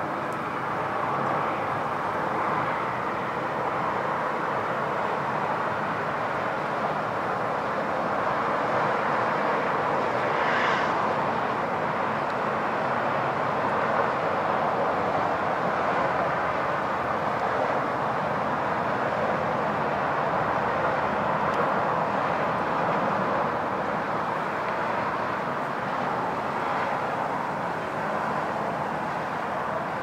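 Strong wind rushing steadily across the microphone.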